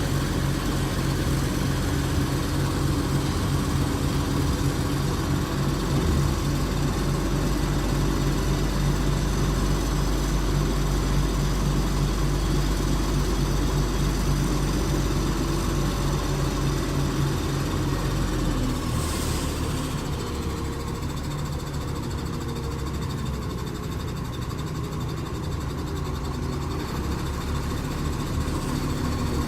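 Diesel engine of a PPM Terex A600 60-ton mobile crane idling steadily. About two-thirds through there is a brief hiss, and the engine sound becomes a little quieter and less deep.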